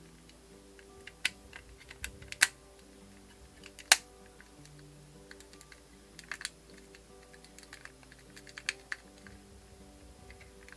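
Irregular sharp plastic clicks and snaps as the articulated panels of a 1/6-scale Iron Man Mark V suitcase accessory are folded and locked into its closed case form. The loudest snap comes about four seconds in, with soft background music underneath.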